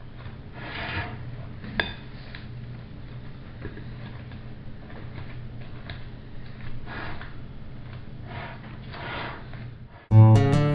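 A spatula scraping softly as it spreads whipped topping in a glass bowl, with one sharp clink of utensil on glass a little under two seconds in, over a low steady hum. Acoustic guitar music cuts in loudly near the end.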